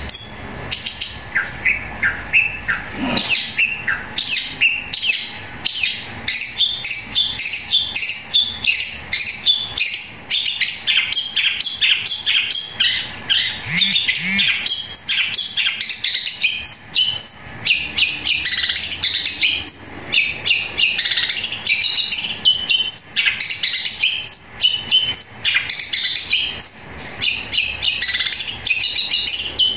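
Caged long-tailed shrike (cendet) singing loudly and without pause, a fast unbroken string of chirps and short sharp notes, with sharp falling notes more frequent in the second half. The song is the shrike's mimicry, which includes the squabbling chatter of house sparrows.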